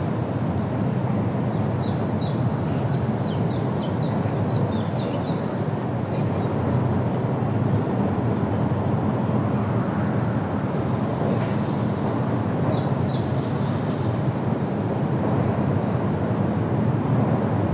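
A steady low rumble of outdoor noise, with a small bird's rapid, high chirping series from about two seconds in, lasting a few seconds, and again briefly about thirteen seconds in.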